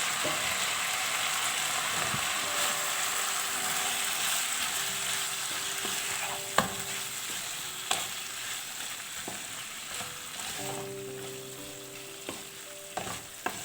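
Cauliflower and paneer sizzling in a pan of masala gravy as they are stirred in. The sizzle slowly dies down, and a spoon knocks against the pan a few times in the second half.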